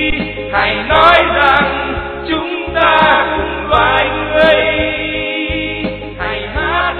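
A Vietnamese song sung by a chorus of voices over instrumental accompaniment.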